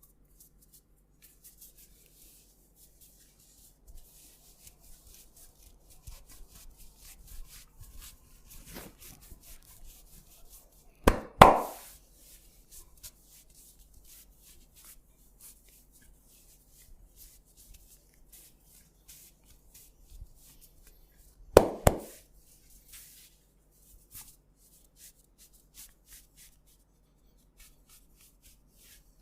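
Hands massaging the head, with faint rubbing and light tapping throughout and two loud sharp hits about ten seconds apart, each a quick double strike.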